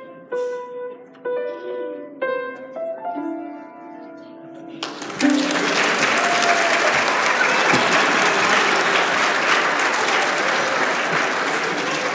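Yamaha grand piano playing single notes of a simple tune, ending on a held note about five seconds in. An audience then breaks into loud, steady applause, which is the loudest sound.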